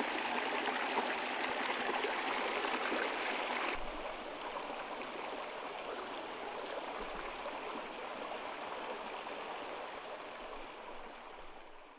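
Flowing stream water rushing steadily. About four seconds in it becomes quieter and duller, then fades out near the end.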